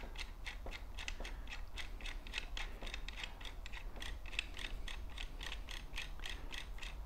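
Ratcheting wrench clicking steadily, about five clicks a second, as it turns a crank-arm puller being threaded into a bicycle crank arm.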